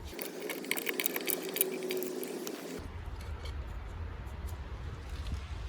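Light metallic clicks and ticks from a homemade jack-and-pipe press being worked against a propeller hub. After about three seconds these give way to a low steady hum with only a few faint ticks.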